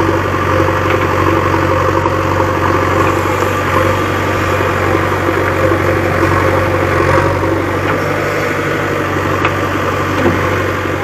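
JCB backhoe loader's diesel engine running steadily at a low, even speed.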